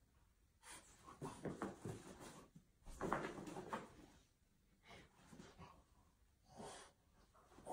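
Faint wheezing, snuffling breaths of bulldogs, a flat-faced breed, coming in irregular short bouts. The loudest bout is about three seconds in.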